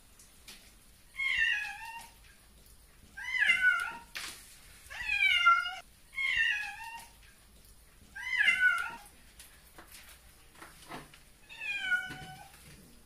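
A wet cat meowing six times in protest at being bathed, each meow drawn out and falling in pitch, one every second or two.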